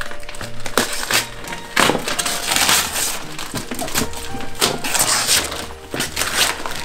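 Wrapping paper being torn off gift boxes in repeated rough rips, over background music.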